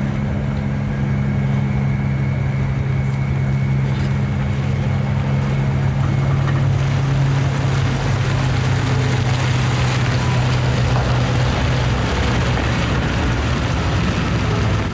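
Toyota Tundra pickup's engine running steadily while it tows a loaded car trailer at low speed, a low hum that fades about twelve seconds in as the truck pulls away.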